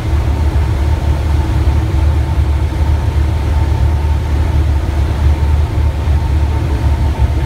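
Steady drone of a small propeller airplane's engine and propeller heard inside the cockpit: a deep, even rumble with a faint steady whine on top.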